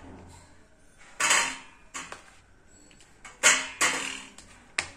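Whole lemons set down one after another onto a perforated stainless-steel steamer plate, each landing with a knock on the metal; about five knocks, the loudest about three and a half seconds in.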